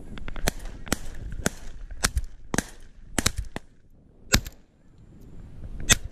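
Shotgun volley from several hunters: about ten sharp shots spread over six seconds, some fainter and quicker together. The two loudest come from the nearest gun, a semi-automatic shotgun, about four seconds in and again near the end, the last followed by the spent shell being ejected.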